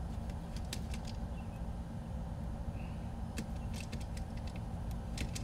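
Faint, scattered small clicks of a screwdriver and small screws being worked out of a plastic radio-transmitter case, a few near the start and a little run near the end, over a steady low hum.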